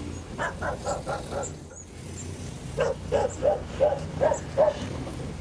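Street dog barking in two runs of short barks, the second an even series of about seven or eight barks, over a low steady traffic hum.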